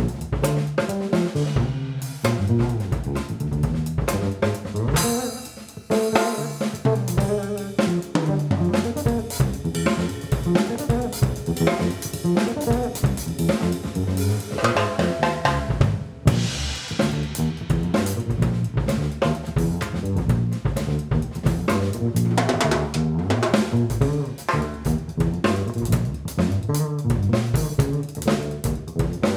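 Pearl drum kit played live in a busy groove: snare, bass drum, hi-hat and cymbals, with a pitched instrument line playing along.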